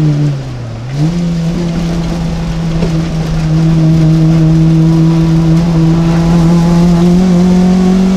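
VW Golf 2 GTI's four-cylinder engine, heard from inside the cabin at racing pace. The revs dip sharply in the first second, pick straight back up, then hold steady and climb slowly.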